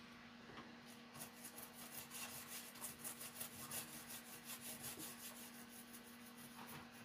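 Faint, quick scratching strokes, about five a second, of a small hand tool scraping across the solder side of a circuit board, over a faint steady hum.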